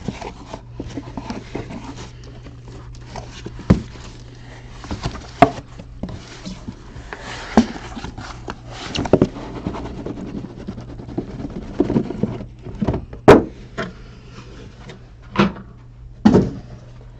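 Cardboard boxes of trading cards being handled and unpacked: rustling and scraping with a dozen or so scattered knocks and thuds, over a steady low hum.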